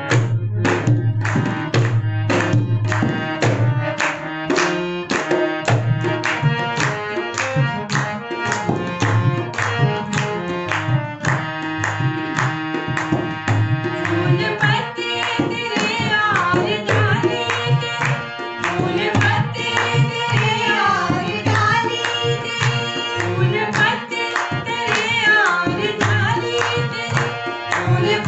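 Devotional bhajan music: a harmonium holding sustained chords over a steady dholak rhythm, with hand claps on the beat. About halfway through, a woman's voice starts singing over them.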